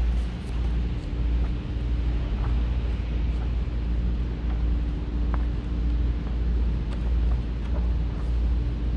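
A vehicle running: a steady low rumble with a constant hum through it.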